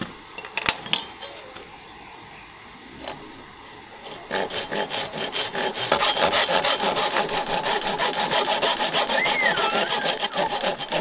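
A fine-toothed hand saw cutting across a dry wooden dowel in quick, even strokes, starting about four seconds in. Before that there are a few light knocks of wood and tools.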